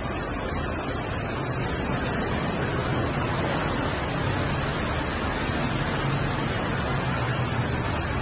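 Steady hiss of heavy rain, with a low rumble of passing street traffic that grows a little louder after the first couple of seconds.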